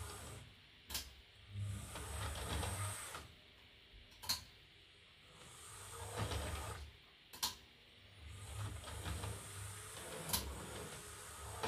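HO scale model diesel shunter locomotive running slowly on its track: the faint whirr of its small electric motor, with a sharp click about every three seconds.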